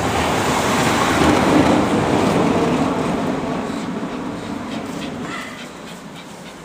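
A vehicle passing on the street, its noise swelling to a peak about a second and a half in and then fading away over the next few seconds. Toward the end, light ticks of a dog's claws on a tiled floor.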